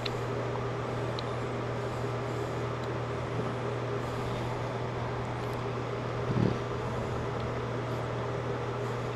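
Steady low workshop hum, with a few faint clicks and one short knock about six seconds in as a raw wheel is fitted by hand into a small lathe's chuck.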